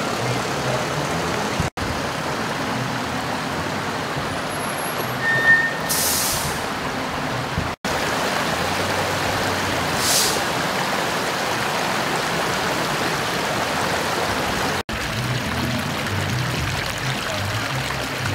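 Floodwater from a broken 16-inch water main rushing steadily across a street, with a low engine rumble underneath and two short hisses about six and ten seconds in.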